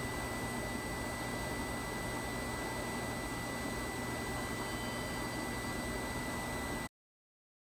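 Steady hiss with a low hum and a faint, thin, high steady tone, which cut off abruptly to silence near the end.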